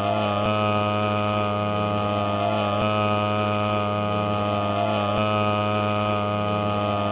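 Loud steady droning hum made of many layered pitches, with a slight wobble that recurs about every two seconds.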